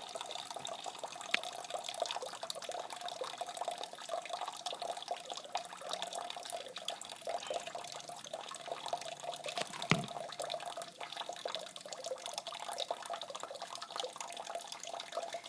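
Water trickling steadily out of a 2-liter bottle and running down a model stream bed, with a single sharp click about ten seconds in.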